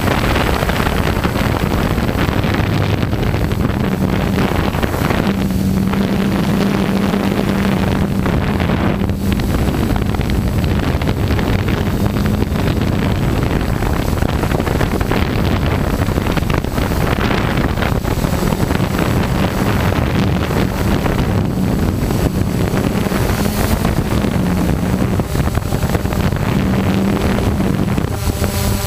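Quadcopter drone's electric motors and propellers buzzing steadily, close to the microphone, mixed with wind rushing over the microphone.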